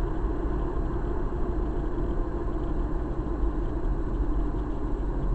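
A car driving along, its engine and tyre noise heard steadily from inside the cabin.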